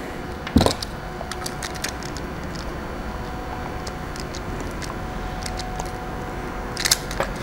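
Small sharp clicks and handling noise from hand wiring work: an inline fuse holder being handled and a hand wire stripper/crimper worked on the cable, with one louder click about half a second in and a quick run of clicks near the end. A steady low hum sits underneath.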